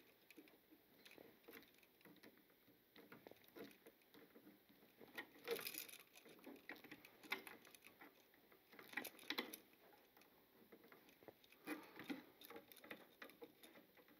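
Faint, irregular clicks and scrapes of pliers gripping and twisting the ends of several copper electrical wires together into a splice.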